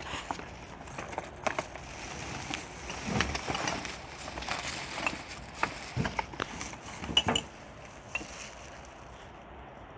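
Debris being sorted by hand in a builders' skip: irregular clatters, knocks and rustling as items are moved about, busiest in the middle and quieter near the end.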